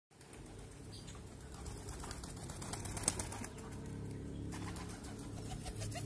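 A domestic pigeon's wings flapping as it flies in and lands on an outstretched hand of seed. The flutter is loudest about three seconds in.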